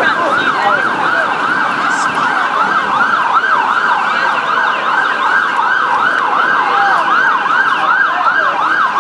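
Emergency vehicle siren on a rapid yelp, its pitch sweeping up and down about three times a second, loud and unbroken.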